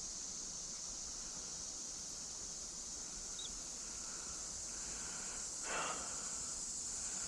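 Insects trilling in a steady high chorus, with a brief rustle about six seconds in.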